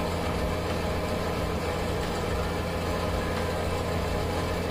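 A steady low mechanical hum, with a constant drone and no change.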